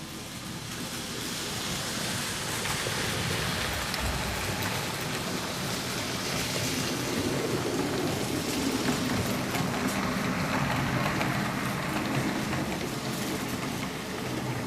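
HO scale model train running along the track close by, its wheels and motor making a dense rattling hiss that swells over the first couple of seconds and then holds steady.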